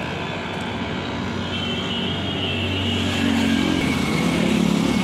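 Road traffic on a flyover: a steady wash of traffic noise, with a motor vehicle's engine hum growing louder over the second half as it comes closer.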